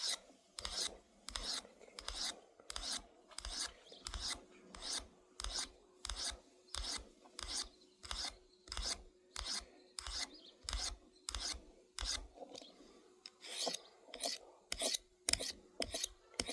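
A pocket-knife blade drawn in even strokes across a Victorinox pocket diamond sharpener. Each stroke is a short rasping scrape, coming a little under twice a second, with a brief pause near the end. The blade has lost its edge completely and the diamond is regrinding it.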